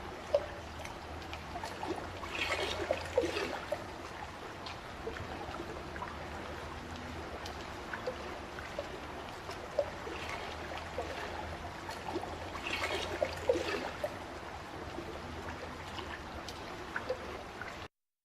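Running water trickling and splashing, like a small stream, with two livelier splashy stretches, a few seconds in and again about two-thirds of the way through. It cuts off suddenly at the very end.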